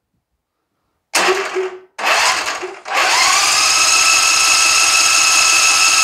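John Deere Z335E zero-turn mower's electric starter cranking the engine: two short bursts, then a steady whining crank of about three seconds. The engine cranks without starting, because no fuel is being pumped from the fuel pump to the carburetor.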